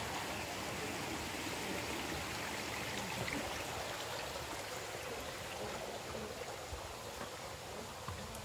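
Running water: a steady, even rush of a stream or cascade flowing over rocks.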